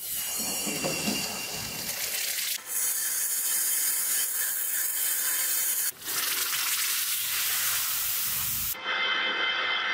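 Sandpaper pressed against a cast aluminium ball spinning in a chuck, a steady hissing rasp as the metal is sanded and polished. The sound changes abruptly about every three seconds.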